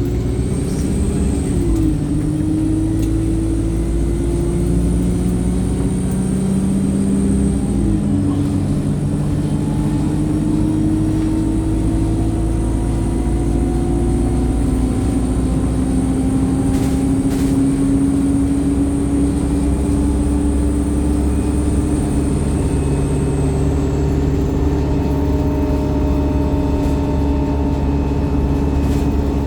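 Single-decker StreetLite bus's diesel engine pulling hard under acceleration. Its pitch rises and drops back twice in the first eight seconds as the gearbox changes up, then climbs slowly for a long stretch before levelling off.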